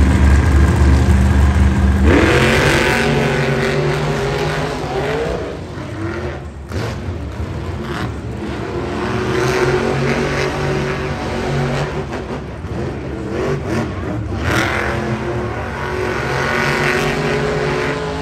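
Monster truck's supercharged V8 engine revving hard. The revs climb sharply about two seconds in, run high and fairly steady, then climb again near the end.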